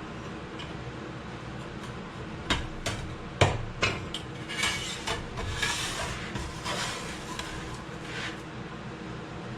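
Metal clanking as sheet-metal stock and tools are handled on a workbench: a few sharp knocks in the first half, the loudest near the middle, then a stretch of scraping and rubbing.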